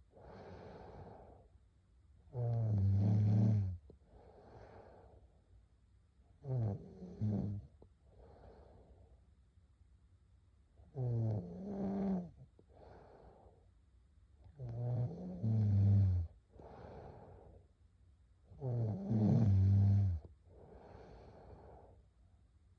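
A sleeper snoring steadily. Five loud, low, rattling snores on the in-breath come about four seconds apart, each followed by a softer breath out.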